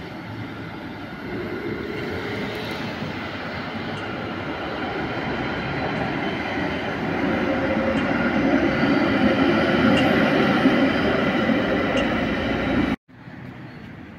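Street traffic with a tram passing close by, its running noise building up over several seconds to its loudest, then cutting off suddenly to a much quieter indoor room sound near the end.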